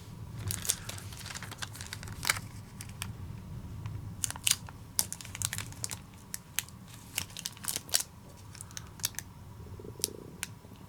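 Adhesive tape being pulled, torn and pressed around a mould: many irregular sharp crackles and snaps.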